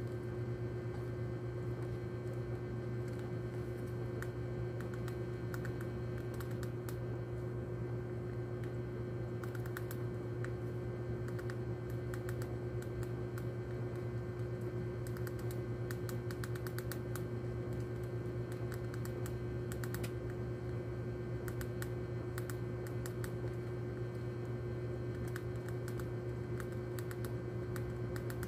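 A rat gnawing and crunching hard rodenticide bait pellets: rapid, irregular small clicks in clusters, over a steady low hum.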